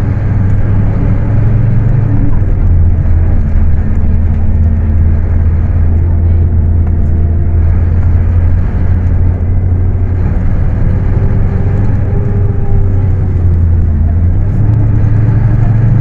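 Scania K310UA city bus's rear-mounted five-cylinder diesel engine running while the bus is under way: a deep, steady drone whose pitch drops slightly about two and a half seconds in and rises again near the end.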